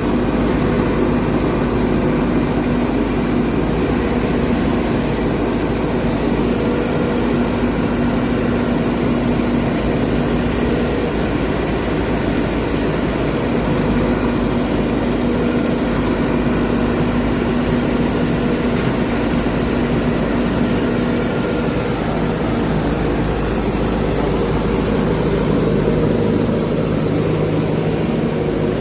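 Backhoe loader's diesel engine running steadily under operation, its pitch shifting a few times as the machine is worked.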